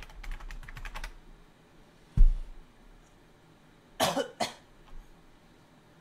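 Rapid typing on a computer keyboard for about the first second, then a single loud low thump about two seconds in. A short cough in two parts follows about four seconds in.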